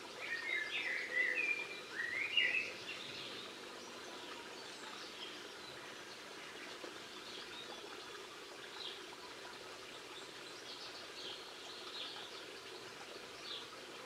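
European goldfinches twittering: a loud run of quick, tinkling chirps in the first three seconds, then fainter scattered chirps.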